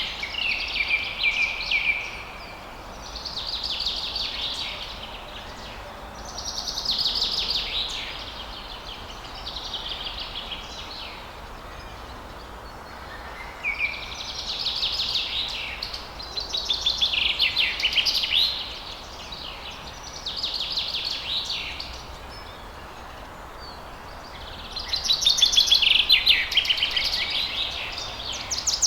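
Songbirds singing in rapid chirping and trilling phrases a second or two long, coming every few seconds, over a steady rush of falling water.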